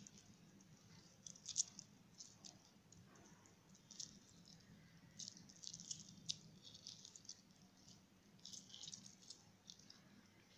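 Near silence: faint room tone with a low hum and a few scattered groups of faint small clicks and crackles.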